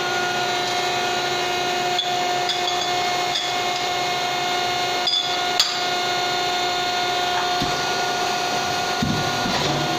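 Tube-shrinking machine's motor running at idle with a steady hum of several fixed tones. A few sharp metal clinks come about two seconds in and twice around five seconds in as a metal tube is handled in the die.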